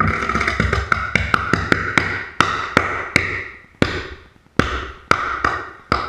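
A chemical reaction flaring up in an evaporating dish: it starts suddenly with a fierce hiss and sputters through a string of sharp cracks and pops, about two or three a second. The hiss fades after about three seconds while the pops carry on, dying away near the end.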